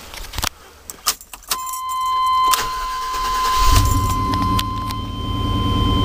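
Keys jingling and clicking in the ignition, then a steady high warning tone comes on and the GM pickup truck's engine cranks and catches about three and a half seconds in, running on at idle. This is the first start after the battery cables were disconnected and refitted.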